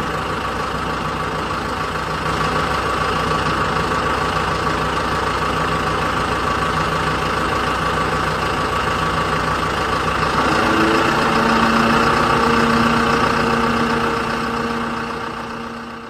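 L&T Case backhoe loader's diesel engine running steadily under working load while the rear bucket digs wet mud. About ten seconds in the engine note changes and grows a little louder.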